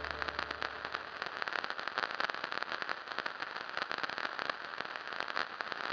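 Steady, dense crackling over a soft hiss, like the surface noise of an old record, while a low lingering tone dies away in the first second.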